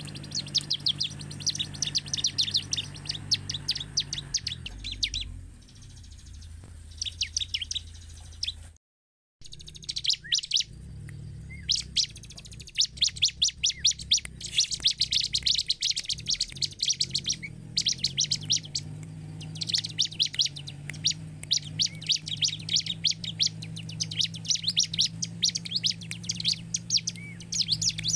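Bar-winged prinia (ciblek) singing: fast trains of sharp, high repeated notes lasting a few seconds each, with short pauses between them, over a steady low hum. The sound drops out completely for about half a second around nine seconds in.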